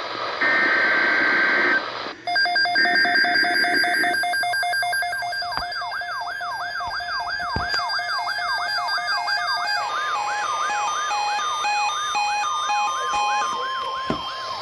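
NOAA Weather Radio emergency alert: the last harsh bursts of the digital SAME header, then an alert receiver's siren-like alarm, electronic beeps over a fast rising sweep repeated several times a second. About ten seconds in, the steady 1050 Hz weather radio warning tone joins it, the signal that a watch or warning is about to be read.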